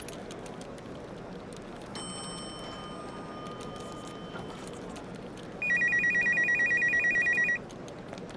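An electronic telephone ringer trills once for about two seconds, a rapid warbling ring, over steady background room noise. A fainter steady tone sounds briefly a couple of seconds earlier.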